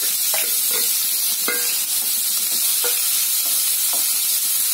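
Chopped shallots sizzling in hot sesame oil in a nonstick pan. A steady hiss runs throughout, with about six irregular scrapes and taps of a wooden spatula stirring them, fewer toward the end.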